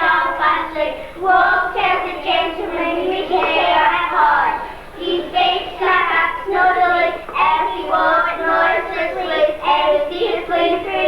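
Children singing, with no pause.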